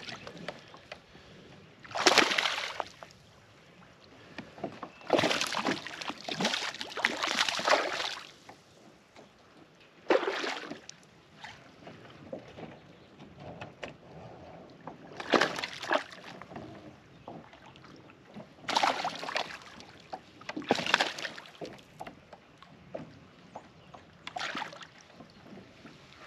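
Water sloshing and splashing against a kayak hull in short bursts every few seconds, with quieter lapping in between.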